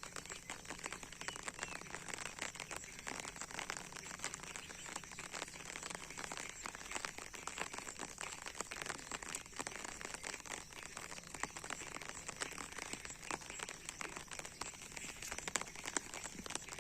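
Rain falling steadily, a dense crackle of raindrops hitting close by.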